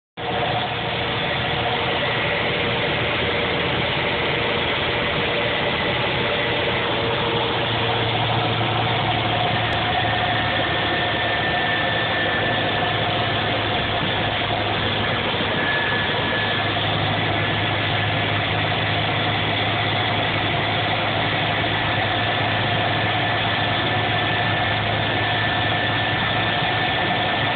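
Steady engine and tyre noise from inside a vehicle driving on a wet road, an even hiss over a low hum with no changes.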